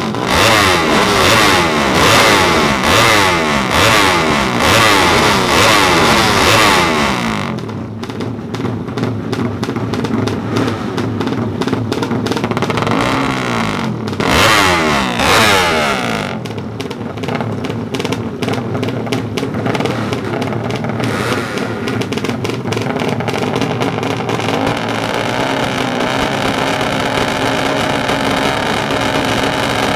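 Yamaha MX King drag bike's engine being revved hard at the start line, rising and falling in pitch in quick blips for the first several seconds. It drops back, surges again about halfway through, then keeps running at lower revs.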